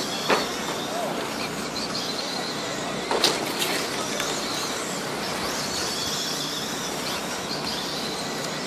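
Radio-controlled late model race cars running laps, their motors whining and rising and falling in pitch as they pass. A few sharp knocks come just after the start and about three seconds in.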